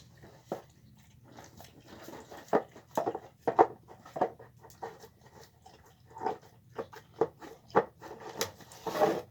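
A dog eating a sloppy meal of chicken with rice and beans: irregular chomps and wet smacks, some louder than others.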